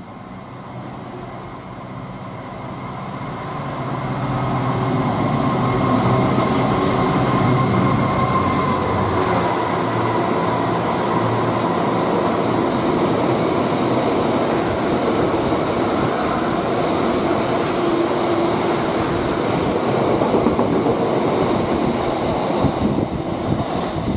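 GBRf Class 66 diesel-electric locomotive approaching and passing at speed, its two-stroke V12 engine growing louder over the first few seconds with a high whine, followed by a long train of freight wagons rumbling and clattering past over the rail joints.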